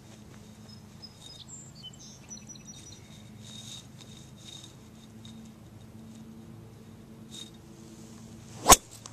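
One sharp crack, a single hard impact, near the end over a faint steady low hum, with a few faint high chirps about two seconds in.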